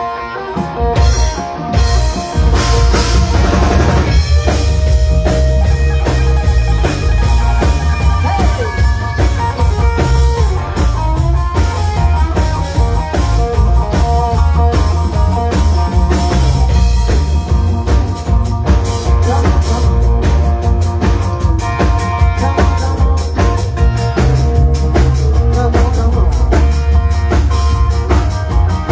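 A rock band playing: a drum kit with bass drum and rimshots, a heavy bass line and guitar, continuously.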